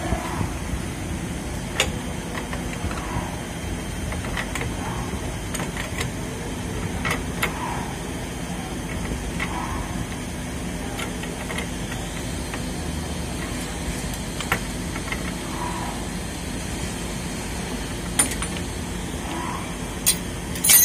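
Spanner clinking and tapping on an air compressor's metal pipe fittings at irregular intervals, over a steady low machinery hum, with a loud rattling burst right at the end.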